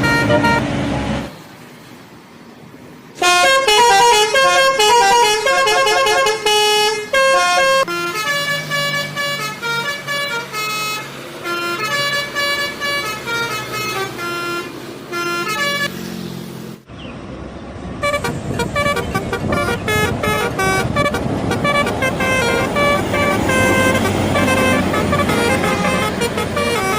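Indonesian bus 'telolet' horns playing quick multi-note tunes over and over, in two long stretches, with bus engine and road noise underneath in the second stretch.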